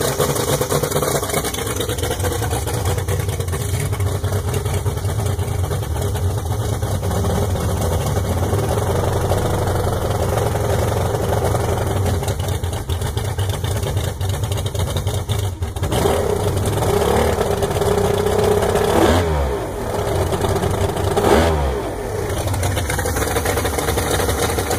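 Mercury Bridgeport V6 two-stroke outboard running with its cowling off, idling steadily. From about two-thirds of the way in, it is revved up and blipped twice a couple of seconds apart, each time falling back to idle.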